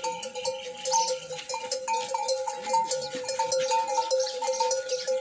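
Bells on a string of walking camels clanking: a steady ringing with fresh strikes several times a second at an uneven pace.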